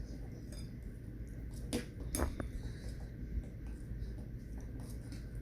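Stirring a thick glue slime mixture in a bowl: soft scrapes and small clicks of the utensil against the bowl, with two sharper clicks about two seconds in.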